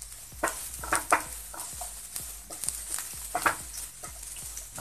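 Spatula stirring and scraping chopped onions, garlic and cumin frying in oil in a non-stick kadhai, over a soft steady sizzle. A few sharper scrapes come in clusters, about a second in and again past three seconds.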